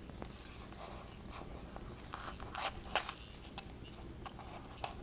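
Knife blade cutting through foamcore board: faint crunching and crackling of the foam with a few sharper clicks, loudest about three seconds in.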